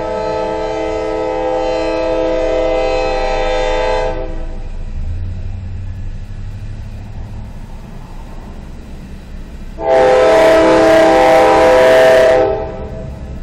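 Diesel locomotive horn, the multi-note chord of a Norfolk Southern GE, blowing two long blasts: one ending about four seconds in and another from about ten to twelve and a half seconds. A low locomotive rumble fills the gap between them.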